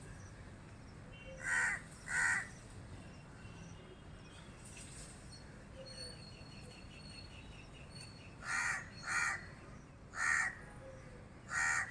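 A crow cawing: six harsh caws, mostly in pairs, with a long gap in the middle. Faint small-bird chirps come between them.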